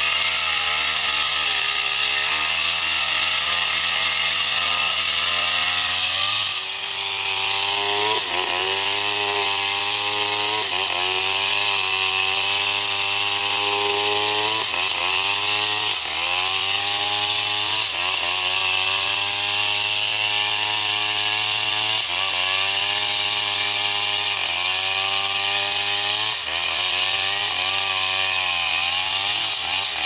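Stihl two-stroke chainsaw at full throttle cutting through a felled log, the engine note sagging as the chain bites into the wood and picking back up about every two seconds.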